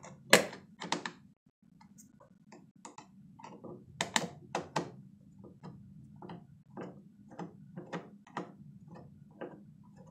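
A light-switch cover plate clacks onto the switch, then a flathead screwdriver turns the cover-plate screw in small twists, making a string of irregular small clicks, about one to two a second.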